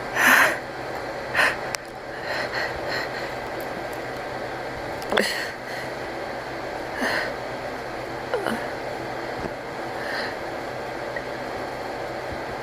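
A person's sneeze buildup without a sneeze: a series of short sniffs and hitching, gasping breaths, a second or two apart, the loudest right at the start.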